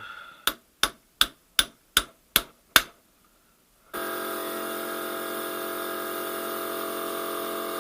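Seven sharp metal-on-metal hammer blows, about two and a half a second, driving a bearing race onto a gearbox shaft. About four seconds in, a steady, even machine hum of constant pitch starts abruptly and runs on.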